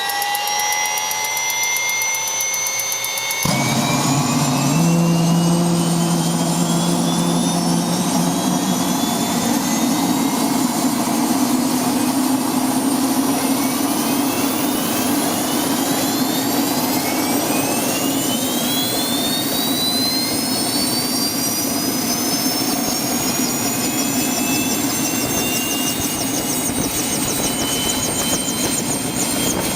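Aircraft turbine engine spooling up: a steady loud rush with a whine that climbs in pitch again and again, and a lower hum that sets in a few seconds in.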